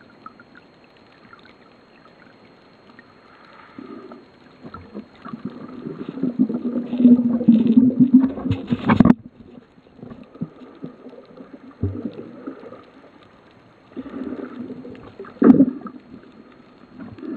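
Muffled water noise on an underwater camera's microphone: irregular gurgling and sloshing swells, loudest in the middle and cutting off suddenly about nine seconds in, with more swells near the end.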